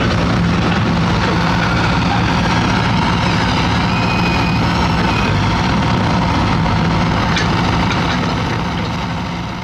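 Heavy diesel construction machinery running steadily with a low drone, fading out near the end.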